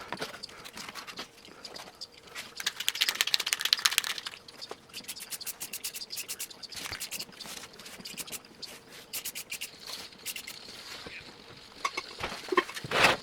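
Irregular scratching and light clicks from small hand work, with a denser run of scraping about three seconds in and a louder knock near the end.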